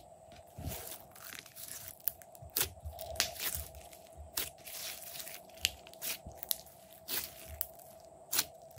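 Glossy slime being pressed and squeezed by hand, giving sticky crackles and irregular sharp pops of trapped air, with a faint steady hum underneath.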